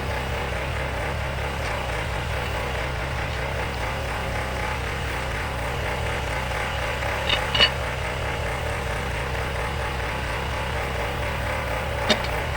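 Bobcat skid-steer loader engine running steadily, with a few short clanks about seven seconds in and again near the end.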